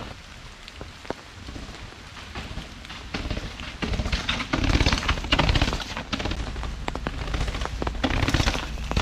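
Rain pattering, with a mountain bike rattling and knocking down wet stone stairs: the tyres and frame clatter on the steps, louder from about four seconds in as the bike comes closer.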